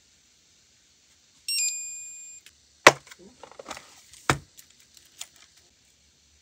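A gel nail lamp gives a short electronic beep that fades over about a second. Then a clear plastic nail-tip case is handled and snapped open: two sharp plastic clicks about a second and a half apart, the first the loudest, with rattling of the tips between and a few lighter clicks after.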